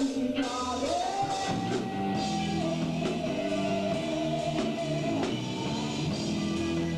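Rock band playing live: electric guitars, bass and drum kit with cymbals, and a long held note from about a second in.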